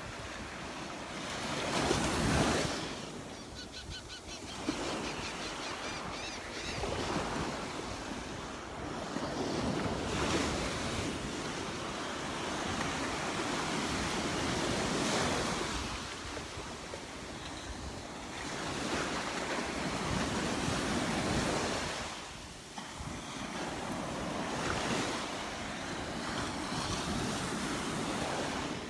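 Gulf surf breaking on the beach, waves washing in and drawing back in swells every few seconds, with some wind on the microphone.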